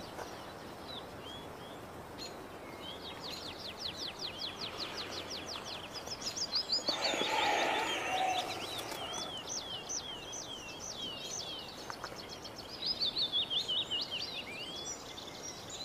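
Woodland birdsong: several small birds chirping and trilling, one with a fast run of repeated notes about three to five seconds in, over a steady outdoor background hiss. A soft rushing swell rises and fades about seven to nine seconds in.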